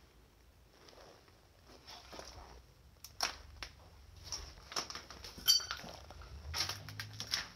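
Footsteps crunching over debris on a basement floor, with scattered clicks and crackles and a short metallic clink about five and a half seconds in.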